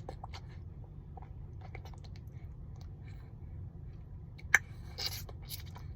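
Infant's mouth noises: small wet clicks and smacks, as from a baby sucking or mouthing, with one sharper click about four and a half seconds in, over a low steady rumble.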